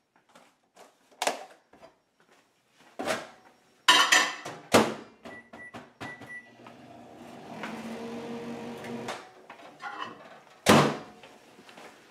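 Light clatter of a glass plate being handled, then loud clunks of a microwave oven door, a few short keypad beeps, and the microwave running with a steady hum for a couple of seconds. A loud clunk follows near the end as the door is opened.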